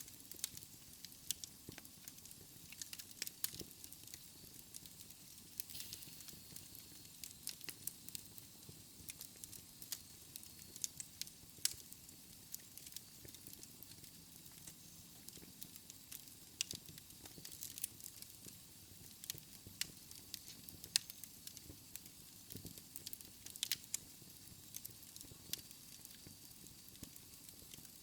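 Wood fire crackling in a fireplace: irregular sharp pops and snaps over a soft hiss and low rumble of the flames.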